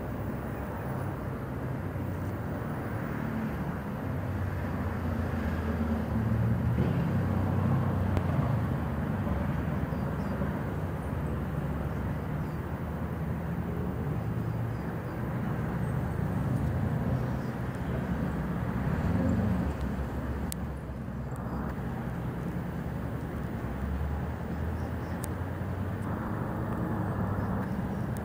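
Steady low rumble of distant engines that swells and fades slowly.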